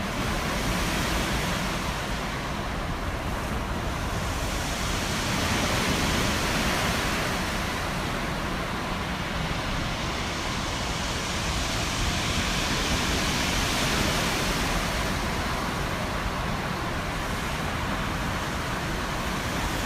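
Sea surf: waves rushing and breaking on the shore in a continuous noise that swells and eases every few seconds, with wind rumbling on the microphone.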